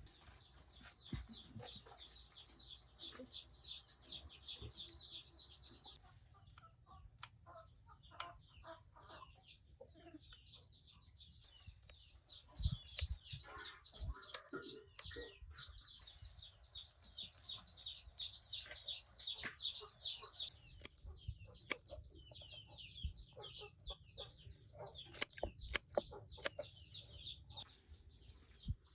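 Birds chirping in long runs of rapid, high, short chirps, with a few sharp clicks or knocks in between.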